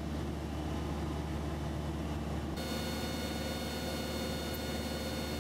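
Light aircraft's engine and propeller droning steadily in cruise, heard inside the cabin. About halfway through, a steady hiss with faint high whining tones joins the drone.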